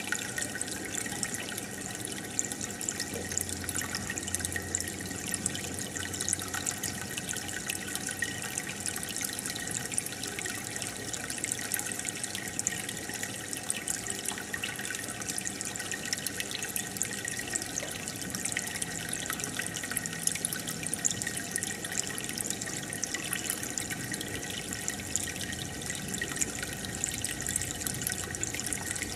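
Aquarium filter and air bubbles splashing at the water's surface: a steady trickling and bubbling with many small pops.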